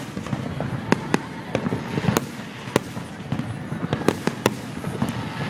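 Fireworks going off in a rapid, irregular series of sharp bangs and cracks, several a second, over a continuous rumbling background.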